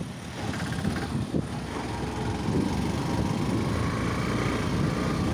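Motorcycle engine running while riding on a rough road, with low rumble from wind on the microphone; a faint whine in the engine note comes up in the second half.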